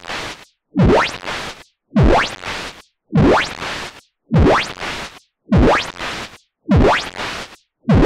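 Synthesized modular-synth pattern repeating about once a second: each hit is a kick-drum thump falling in pitch, together with a burst of white noise run through a parametric EQ whose filter sweeps upward through it. About seven hits, with a short silence between each.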